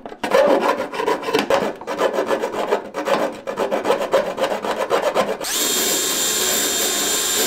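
A metal file scraping back and forth across the steel van floor in quick, irregular strokes. About five and a half seconds in, a cordless drill with a wire cup brush starts and runs steadily, a high whine with a hiss, as it scrubs rust and loose paint off the floor.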